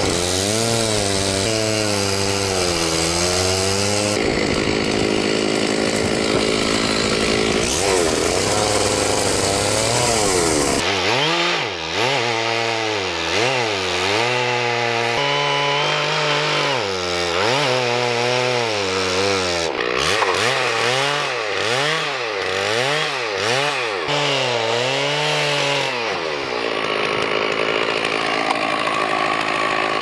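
Stihl two-stroke chainsaw cutting along the top of a large log, its engine pitch dropping as the chain bites and rising again, over and over.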